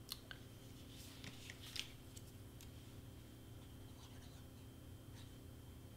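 Faint handling of cardstock pieces and a plastic glue bottle: a few soft clicks and light rustles, the sharpest a little under two seconds in, over a steady low hum.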